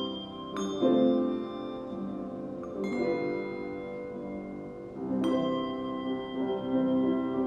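Brass handbells rung in a slow melody, sometimes two at once: a bright strike about every two seconds, each note ringing on and fading slowly under the next.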